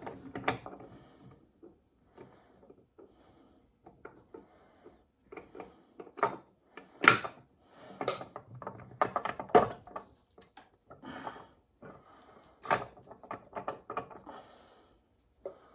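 Steel gears and parts of a Warner Bearing T9 transmission clinking and knocking as a gear is fitted on during reassembly: irregular clicks and knocks with light scraping between them, the sharpest about seven seconds and about thirteen seconds in.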